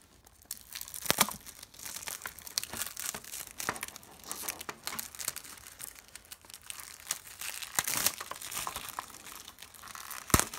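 Clear plastic shrink-wrap crinkling and tearing as it is peeled by hand off a plastic Blu-ray case, with a few sharp clicks, the clearest about a second in and another near the end.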